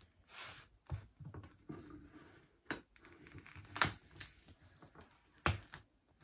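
Clear plastic film on a small cardboard box being slit with a knife and pulled at: irregular crackling and rustling with several sharp snaps, the loudest about four and five and a half seconds in.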